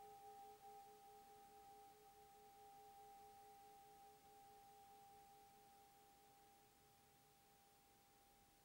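Tibetan singing bowl held in the hand, ringing on and slowly fading, with a steady upper tone over a lower tone that wavers.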